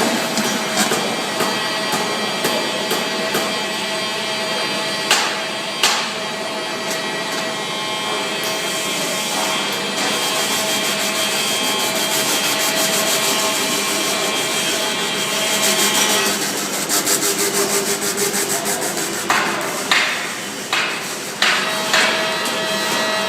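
Overlap stitch-welding machine running with a steady hum. From about ten seconds in, a fast, even ticking joins it, and a few sharp knocks come near the end.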